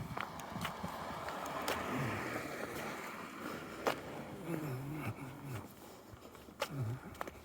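Footsteps of a person walking on a snowy sidewalk, with a car passing on the street; its tyre noise swells over the first few seconds and fades.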